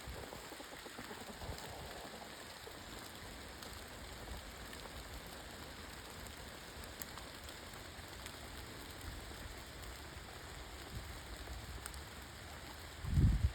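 Steady hiss with a faint fine patter, of the kind light rain makes, and a short low rumble near the end.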